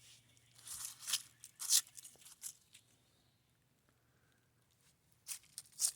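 Footsteps crunching and rustling on the ground: several irregular steps in the first few seconds, a short pause, then two more near the end.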